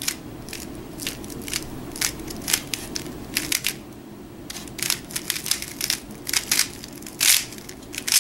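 Plastic 3x3 speedcube (a MoYu Aolong v2) clicking and clacking as its layers are turned by hand. The turns are scattered at first, then come in quick runs from about four and a half seconds in.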